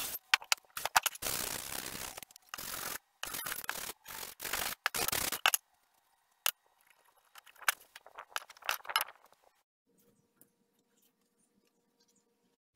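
Corded drill with a wire brush cup scrubbing flat metal hardware in several short bursts, the brushing starting and stopping abruptly. The bursts give way to lighter clicks and knocks of tools being handled and set down.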